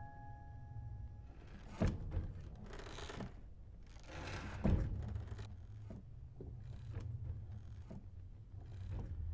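Horror-film sound design: a steady low rumbling drone with two sharp thuds, about two and five seconds in, and two hissing whooshes that swell and fade between them, then a few fainter knocks.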